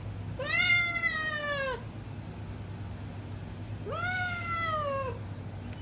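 Domestic cat meowing twice, two long drawn-out meows a couple of seconds apart, each rising quickly and then sliding down in pitch.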